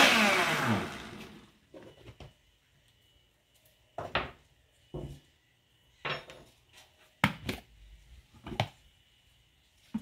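Countertop blender motor spinning down after being switched off, its pitch falling steeply as it fades over the first second. Then a few scattered knocks and clunks as the plastic blender jar and its lid are handled.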